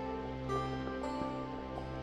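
Calm, slow background music in a new-age style: sustained tones with soft new notes entering about half a second and a second in.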